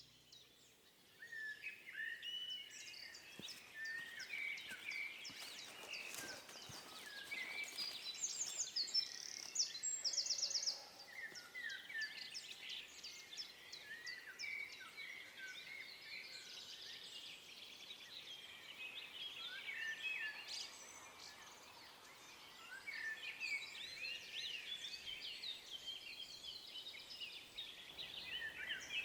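Several songbirds singing and calling together, a mix of short chirps and trills, with a louder, higher trill about eight to ten seconds in.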